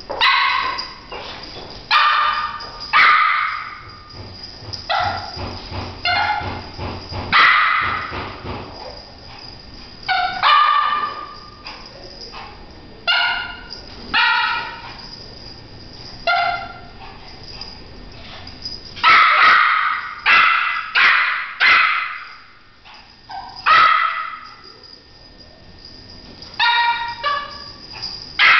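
French poodle barking over and over at a flashlight spot it is chasing, short sharp barks coming singly or in quick runs every second or two, with a dense run of barks about two-thirds of the way through.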